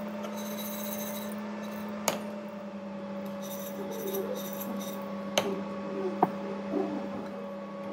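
Raw rice grains rattling and sliding in a nonstick frying pan as the pan is shaken and tilted, dry-toasting the rice until golden. Three sharp clicks of the pan come through over a steady electrical hum.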